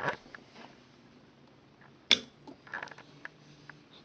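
Clicks and light knocks from handling a vintage stereo receiver during a tuning demo: one sharp click about two seconds in, then a few lighter ticks, over a faint low hum.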